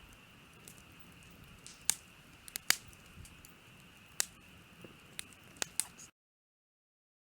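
Wood campfire crackling, with sharp irregular pops about a dozen times; it cuts off to silence about six seconds in.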